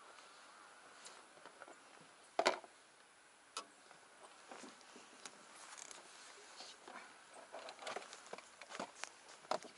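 Handling noise from fishing tackle: scattered light clicks and taps, with one sharper knock about two and a half seconds in and a cluster of small clicks near the end.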